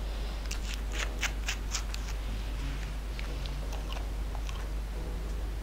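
Small glass nail polish bottle being handled and opened, giving a quick run of sharp little clicks for about a second and a half, then a few scattered ones. A steady low hum runs underneath.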